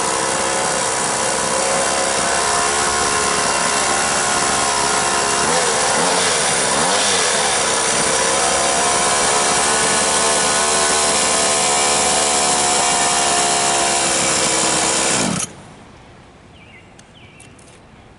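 Small two-stroke weed-eater engine in a quarter-scale RC car running steadily, its pitch dipping and rising briefly partway through, then shut off suddenly about 15 seconds in. The car has a problem: the cotter pin on its drive shaft has sheared.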